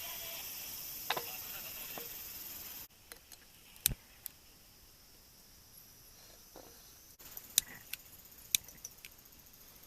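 A steady, high chorus of summer insects, cut off abruptly about three seconds in. After that come a few sharp clicks and clinks, like camp gear being handled.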